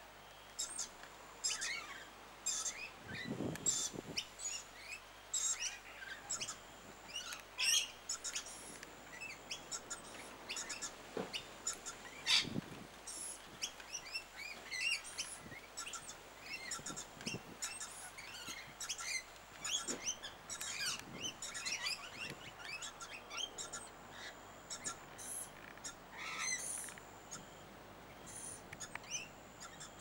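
Many short, overlapping bird chirps and calls from a mixed flock of rainbow lorikeets, a scaly-breasted lorikeet and noisy miners feeding on the ground, with a couple of brief low thumps.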